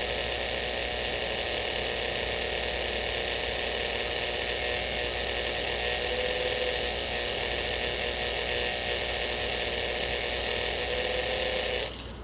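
Dental laboratory handpiece spinning a thin rubber polishing wheel against a gold crown, finishing the crown margin. A steady whir with a high whine that cuts off suddenly about a second before the end.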